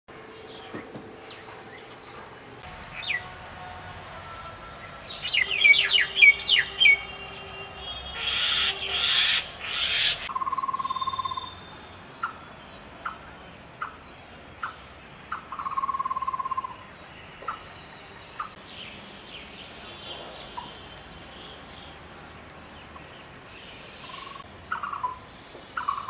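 Several wild birds calling: a quick run of high sliding whistles about five seconds in, harsh rasping calls soon after, then scattered short notes and two longer level whistles at a lower pitch.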